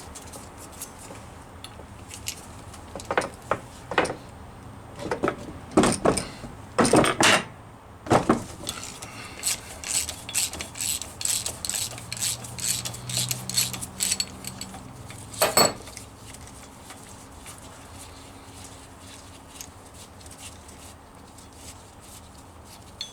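Hand tools clinking and knocking on metal as a differential bolt is undone, with a run of regular ticks in the middle like a socket wrench being worked back and forth, then quiet handling near the end.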